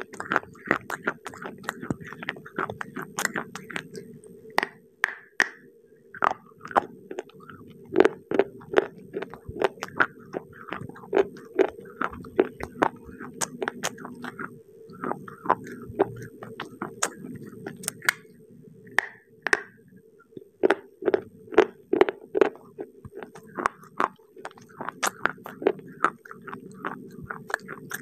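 Dry baked clay pieces being bitten and chewed close to the microphone: a dense, irregular run of crisp crackles, several a second, with short pauses between bites.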